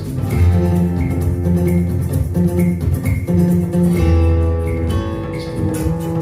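Recorded pop music with guitar and a strong bass line, played back through IKEA Eneby speakers in stereo, with a steady beat ticking about twice a second.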